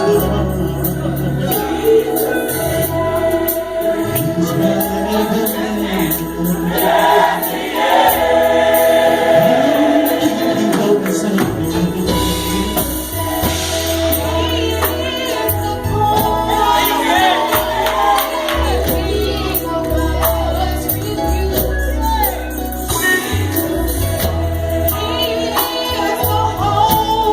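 Gospel choir singing over sustained low instrumental notes.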